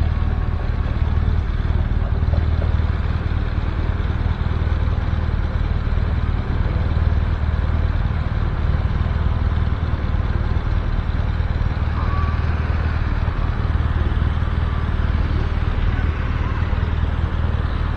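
Vehicle engine idling close by: a steady low hum that does not change, over a haze of street noise and faint distant voices.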